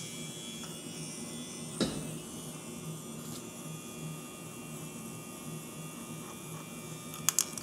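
Small electric motor running steadily, turning a tiny 3D-printed gear ring, with a hum that swells and fades regularly as it turns. One sharp click comes about two seconds in, and a few more come near the end.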